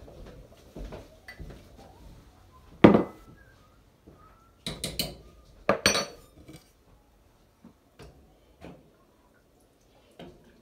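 A utensil clinking and knocking against a cooking pot while cornstarch slurry is added to hot broth to thicken it into gravy. The loudest knock comes about three seconds in, with quick clusters of clinks around five and six seconds.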